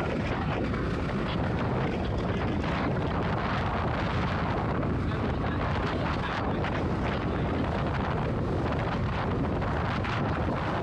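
Outboard-powered aluminium tinny running at speed across open water: a steady drone of motor and hull noise, with wind buffeting the microphone.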